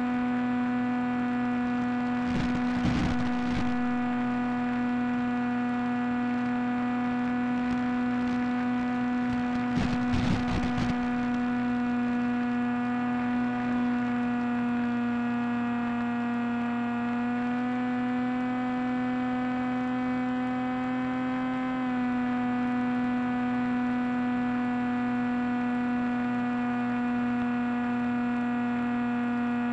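Steady buzzing hum with many overtones on the analog FPV video feed's audio. Its pitch rises slightly for a few seconds in the middle. Two brief bursts of crackle come, one about three seconds in and one about ten seconds in.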